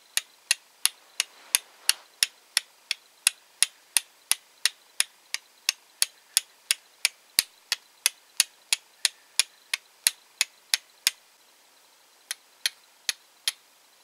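Flint and steel struck over and over, about three sharp clicks a second, with a short pause near the end before three more strikes. The sparks are falling on char cloth that is too charred to catch them.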